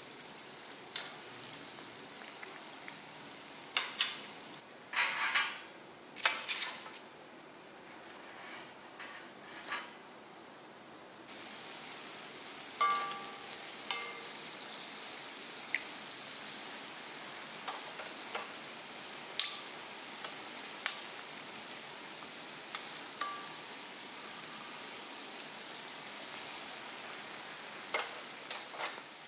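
Donuts deep-frying in hot oil: a steady sizzling hiss, with sharp clicks and short metallic clinks of tongs against the pan as the donuts are turned.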